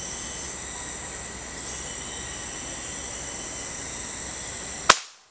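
Steady high drone of insects, then about five seconds in a single sharp gunshot from a hunting rifle, after which the sound cuts off abruptly.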